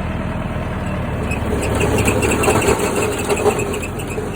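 Case IH 844S tractor engine running in reverse gear, with the PTO in ground drive turning the plugged haybine backwards to clear the jam. A rhythmic mechanical clatter from the drive builds from about a second in.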